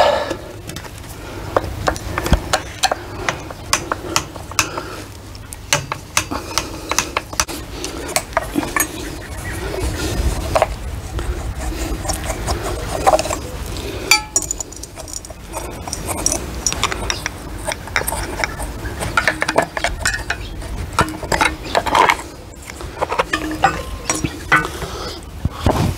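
Screwdrivers clicking, tapping and scraping against the plastic switch box of an electric pressure washer, irregular small clicks with a brief lull about halfway through, while a screw is worked loose whose brass insert spins in the plastic.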